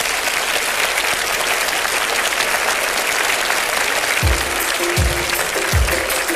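Studio audience applauding. About four seconds in, the song's intro begins under the applause with a regular bass beat and a held keyboard note.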